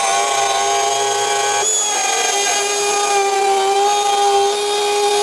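Electric wood router running steadily with a high-pitched whine while it routes the plumbing cutout in a wooden drawer box.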